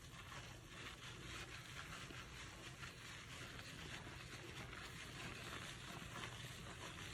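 Scalp being washed and worked during a scalp-care treatment: a faint, steady soft hiss with fine crackling, like water and lather moving through hair.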